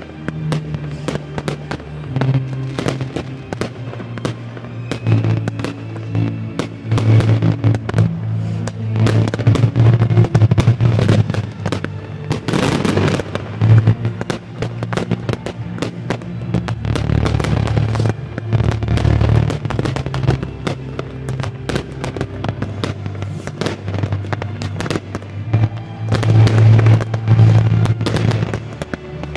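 Fireworks display: shells bursting one after another with dense crackling, louder clusters about a third of the way in and near the end, over music playing throughout.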